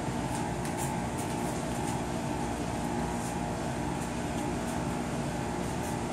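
Steady mechanical hum and hiss of room noise, with faint light taps at irregular intervals as a gloved fist strikes a round pad on a heavy bag in repeated chain punches.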